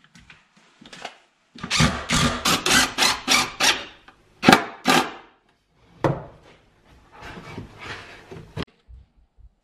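Cordless DeWalt impact driver driving screws into pine boards, in several bursts of rapid hammering. The longest burst comes early, two sharp hits follow, and a last run cuts off suddenly near the end.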